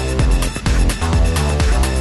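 Electronic dance background music with a steady beat.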